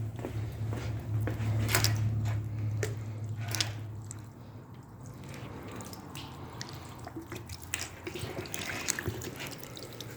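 Water poured from a bottle splashing and dripping irregularly over a car's windshield glass, in a leak test for the freshly resealed windshield. A low steady hum sits under it for the first four seconds, then fades.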